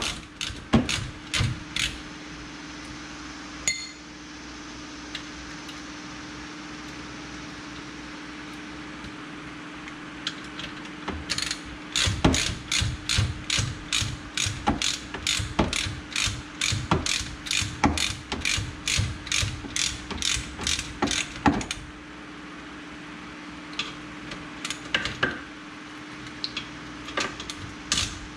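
Hand ratchet wrench clicking in quick runs as a bolt at the rear brake is worked, with pauses between the runs. A steady low hum sits underneath.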